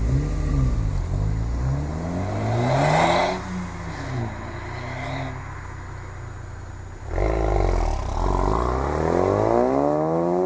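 Two turbocharged four-cylinder hot hatches, a 2015 Honda Civic Type R and a 2015 Ford Focus RS, revving side by side, their engine notes rising and falling together. About three seconds in the Civic pulls away and its sound fades. About seven seconds in the Focus RS launches hard, its engine note climbing through the revs as it accelerates off.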